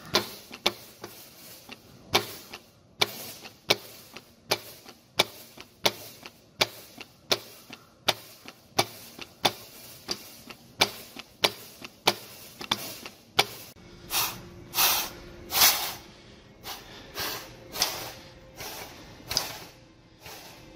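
Mechanical clicking in an even rhythm, about one click every three-quarters of a second, as a Vilter compressor's oil-operated unloader is worked to lift the suction valves from their seats. From about 14 seconds in, the clicks give way to longer rasping strokes.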